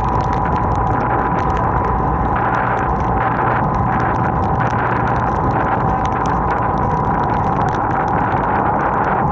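Motorcycle cruising at a steady speed on a wet road, its engine running evenly under wind rushing over the microphone, with a steady high tone running through it.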